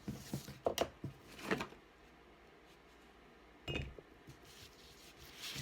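A few short taps and rustles of craft materials being handled on a tabletop, four brief sounds spread over the first four seconds, with quiet room tone between them.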